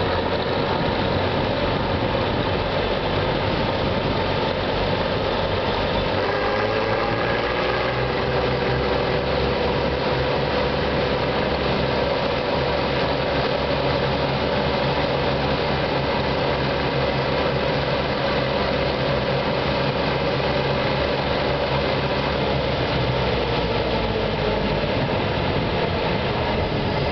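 Bizon Super Z056 combine harvester's SW400 six-cylinder diesel engine, freshly overhauled, running steadily. About six seconds in, its note dips briefly and then steadies again.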